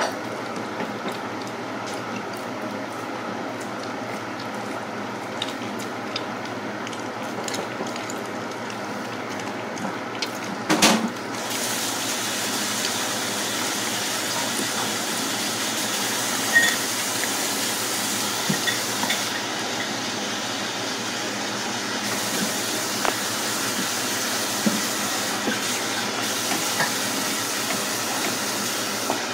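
Siberian husky eating a raw chicken back from a stainless steel bowl: wet chewing and licking, with scattered clicks of teeth and bone against the metal bowl. There is a louder clatter about eleven seconds in, over a steady background hiss.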